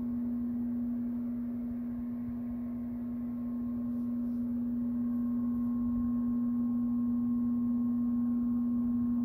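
A steady low hum at one unchanging pitch, with a fainter higher tone joining it about five seconds in.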